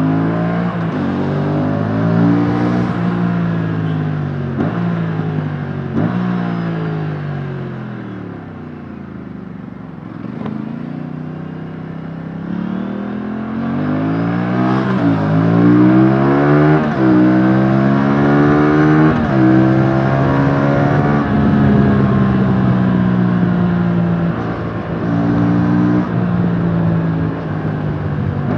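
Aprilia RS 457's 457cc parallel-twin engine through its stock exhaust, heard onboard while riding: the revs climb and fall back through several gear changes, ease off to a low point about eight to ten seconds in, then climb through more shifts and hold fairly steady near the end.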